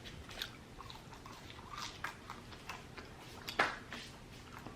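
Faint, close mouth sounds of someone chewing food, with scattered soft clicks and one sharper click about three and a half seconds in.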